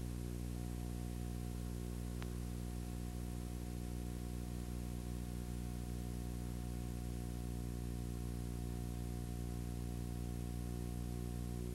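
Steady electrical hum and buzz with faint hiss from blank VHS tape playback, unchanging throughout. A faint tick about two seconds in.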